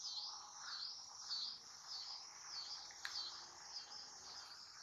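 A faint, high insect buzz that rises and falls in pitch a little under twice a second, with a single faint click about three seconds in.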